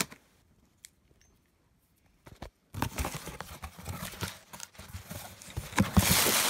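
Cardboard shipping box being opened by hand: after a couple of seconds of near silence, the flaps scrape and the packing inside rustles, with many sharp clicks and taps, loudest near the end.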